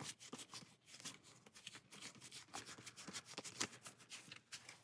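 Faint, irregular soft clicks and rustles of stiff game cards being flipped through and slid over one another in the hands.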